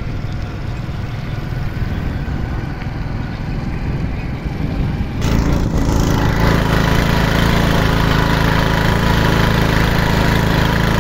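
Motorcycle engine running as it rides along a gravel dirt track. About five seconds in, the sound turns suddenly louder, with more hiss on top.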